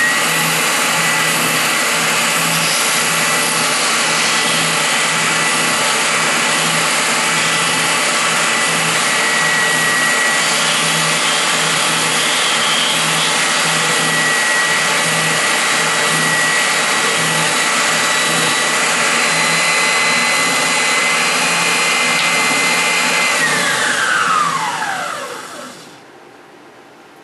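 Oscillating drum sander running with a steady high whine and a low, regular pulsing while a small wooden block is pressed against its sanding drum. About 23 seconds in it is switched off, and the whine falls in pitch and fades as it winds down.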